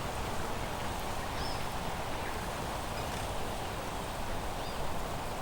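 Outdoor natural ambience: a steady hiss of noise with a small bird's short high call repeating about every second and a half.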